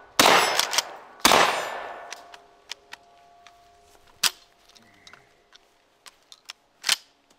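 Stevens 320 Security 12-gauge pump shotgun fired twice, about a second apart, each shot echoing as it dies away. The pump action clacks between the shots, and a string of sharp metallic clicks and clacks follows as the action is handled.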